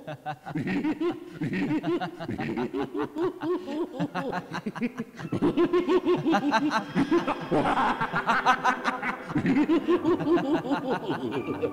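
A person laughing on and on in a long, pulsing chuckle, breaking into higher, shriller laughter about eight seconds in.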